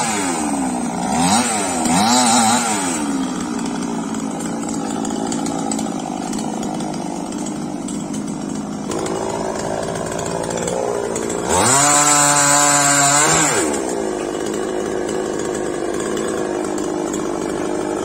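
Chainsaw running throughout. It is revving high at the start and swinging down and up in pitch during the first few seconds, runs lower for a stretch, revs high again for about two seconds past the middle, then drops back.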